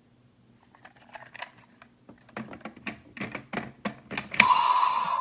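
Bandai Vision Driver toy belt in use: a run of sharp plastic clicks that grow louder. About four seconds in comes a loud burst, then a sustained electronic sound effect from the toy.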